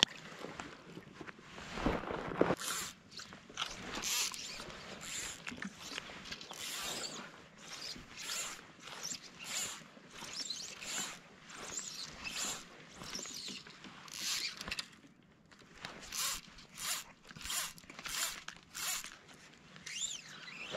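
Fly line being stripped in by hand through the rod guides: a run of short rasping zips, about one or two a second. A splash of water near the start.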